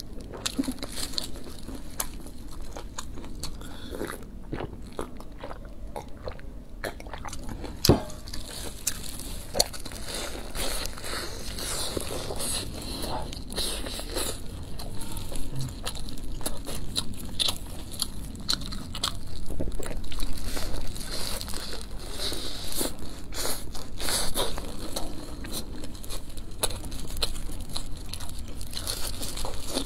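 Close-miked biting and chewing of pan-fried stuffed flatbreads (xianbing), the crisp crust crunching and crackling with each bite. A single sharp click about eight seconds in.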